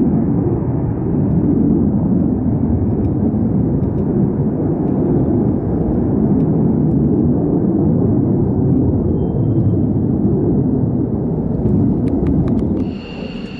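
F-35 fighter jet's engine: a loud, steady, deep rumbling jet noise as it climbs and banks overhead. It drops abruptly to a much quieter level near the end.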